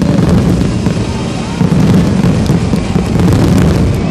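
Fireworks finale barrage: many aerial shells bursting on top of one another with dense crackling and a continuous low rumble, with no break between the reports.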